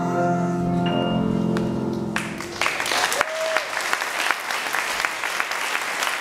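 A children's choir holds the last note of a song with accompaniment, ending about two seconds in, then the audience breaks into applause.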